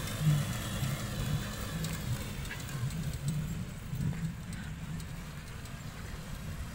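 Small motorcycle engine running at low speed as it rides off across a field, heard from a distance as a steady low hum that wavers slightly.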